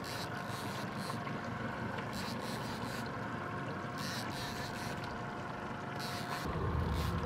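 Fishing boat with 150 hp outboard motors at sea: steady low motor hum mixed with water rushing along the hull and wind. The low rumble grows louder near the end.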